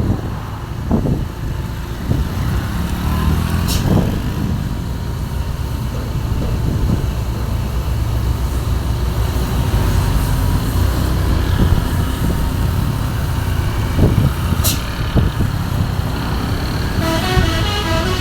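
Hino 500 Euro 2 truck's diesel engine rumbling with its exhaust brake ('jembrit') engaged on a downhill, with two short hisses, one about 4 s in and one near 15 s. About 17 s in, a telolet multi-tone horn starts playing a stepped tune of several notes.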